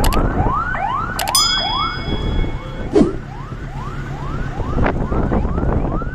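An electronic siren or alarm sounding in a fast yelp of short rising sweeps, about three a second, over a loud low rumble of wind. About a second in, a sharp metallic clang rings on briefly.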